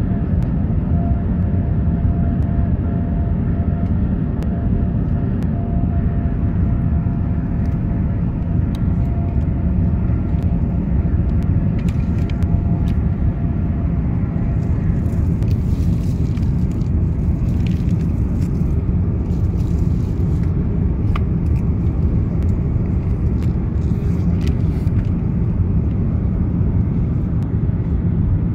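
Airbus A350-900 cabin noise: a loud, steady rumble of the jet engines and airflow heard from inside the cabin, with a few light clicks in the middle.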